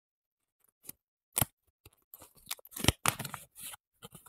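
Small red paper hongbao envelope being handled and opened by hand: a couple of short crisp clicks, then a run of paper crackling and rustling in the second half.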